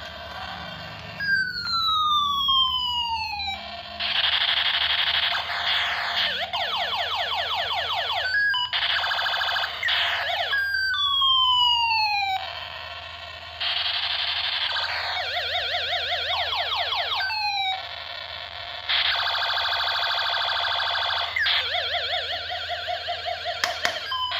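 Battery-powered red toy gun playing its electronic sound effects: long falling laser-like tones alternating with stretches of fast, siren-like warbling.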